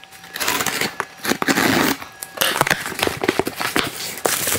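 Cardboard shipping box being opened: flaps pulled apart and scraping, with plastic bubble packing crinkling inside, in a run of rustling bursts and a few sharp clicks.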